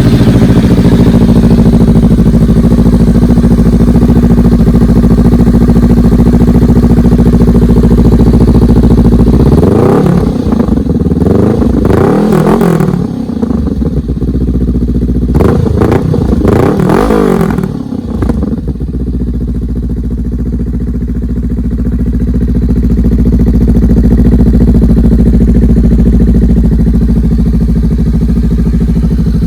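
Honda Rebel 500's parallel-twin engine through an SC Project slip-on exhaust, idling steadily, then revved in two sets of quick throttle blips about ten and sixteen seconds in before settling back to idle.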